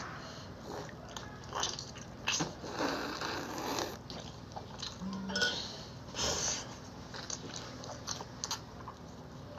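Close-up eating sounds: biting into and chewing spicy shellfish coated in red chili oil, with wet smacks and crunches that come in irregular bursts. The bursts are loudest from about two to four seconds in and again just past six seconds.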